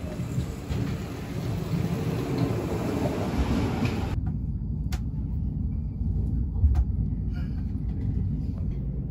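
Deutsche Bahn ICE train pulling into a station platform, a steady rush and rumble of noise. About four seconds in it gives way abruptly to the low rumble of a train running, heard from inside the carriage, with a few sharp clicks.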